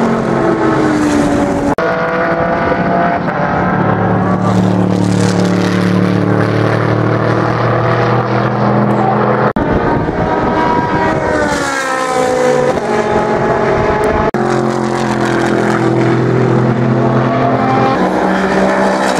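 Mercedes-Benz SLS AMG GT3's naturally aspirated 6.2-litre V8 racing engine at high revs on track. Its pitch falls at the start, holds for several seconds, then climbs again a little past the middle as it accelerates, with a few sudden breaks between shots.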